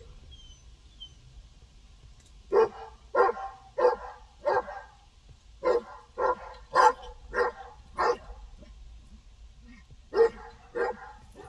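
Turkish Kangal shepherd dog giving alert barks in three runs of short, evenly spaced barks, about one every half second or so: four, then five, then three near the end.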